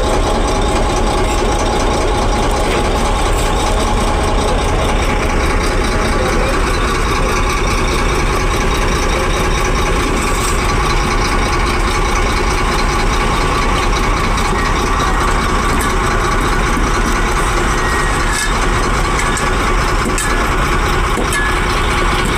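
Excavator's engine running steadily.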